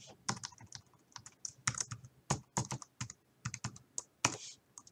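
Computer keyboard keys tapped in an irregular run of short clicks as a password is typed in.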